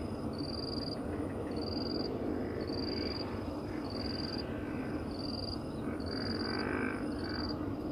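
An animal call: a high-pitched chirp, each about half a second long, repeating evenly about once a second, over a steady background noise.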